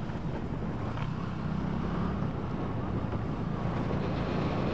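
Steady wind rumble on the microphone of a motorcycle riding along at a constant speed, with the bike's engine and road noise beneath it.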